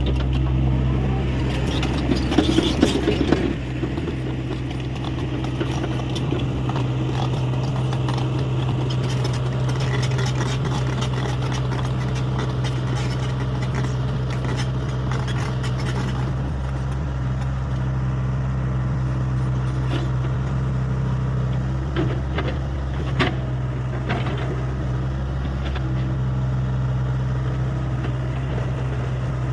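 Hyundai 85A excavator's diesel engine running steadily under work. About two seconds in there is a louder scraping clatter lasting about a second and a half, and a few sharp knocks come near the end.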